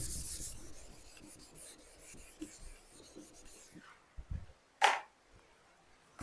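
Hand writing strokes, a scratchy rubbing of a pen or marker tip on the writing surface for the first few seconds, then a single short tap about five seconds in.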